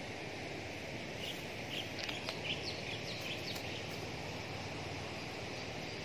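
Outdoor ambience: a steady high insect drone, with a run of short bird chirps between about one and four seconds in, over a steady low background noise.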